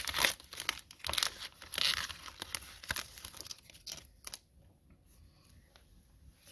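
Foil wrapper of a trading card pack being torn open and crinkled in the hands, a quick run of crackling rustles that stops about four seconds in.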